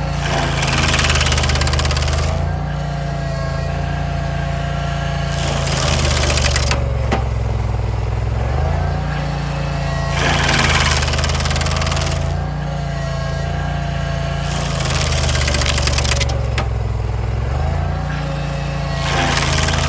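Barreto SG3630 stump grinder's gasoline engine running steadily while the cutter wheel sweeps across a stump. About every four to five seconds a harsh grinding swells and fades as the teeth bite into the wood, and the engine pitch sags briefly under the load.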